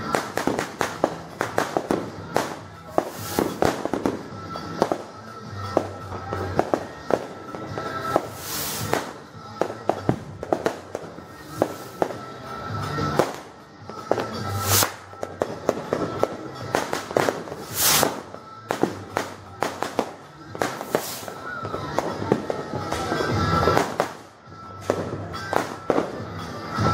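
New Year fireworks and firecrackers going off nonstop: a rapid, irregular string of bangs and crackles with a few heavier blasts.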